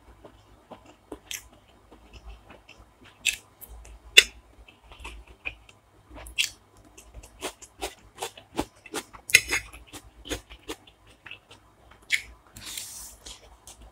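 Close-miked chewing and biting of food: irregular wet clicks and crunches, some sharp and loud, with a short breathy hiss near the end.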